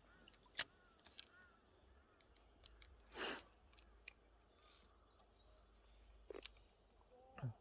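Near-quiet outdoor ambience broken by a few small sharp clicks and one brief swish about three seconds in.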